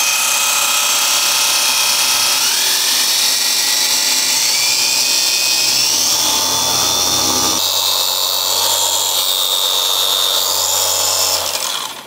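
Batoca S4 cordless 3-inch mini car polisher running free in the hand, its electric motor whining steadily. The whine steps up in pitch as the tool is clicked through its fixed speed settings, then the motor stops shortly before the end.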